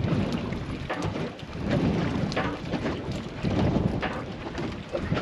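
Wind buffeting the microphone in uneven gusts aboard a small boat, a low rumble that surges and dips, with faint splashy ticks of water.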